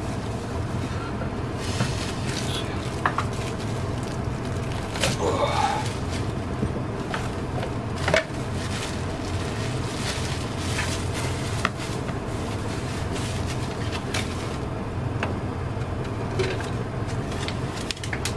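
Plastic wrapping rustling and crinkling, with scattered light clicks and knocks as a small plastic appliance is handled, over a steady low hum.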